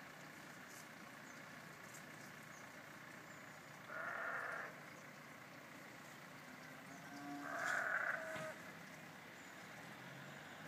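Farm animals calling twice: a short call about four seconds in and a longer one near eight seconds, over a faint steady background.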